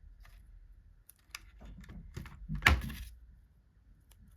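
Chipboard craft pieces being handled on a work surface: scattered light taps and rustles, with one louder thunk about two-thirds of the way through.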